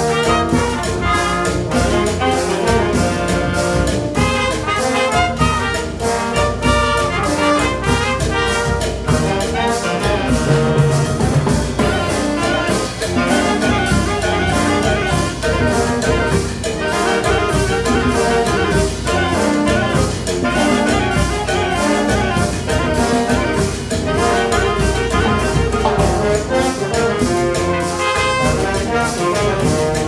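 Live wind band of brass, woodwinds and percussion playing a cumbia, with a steady beat.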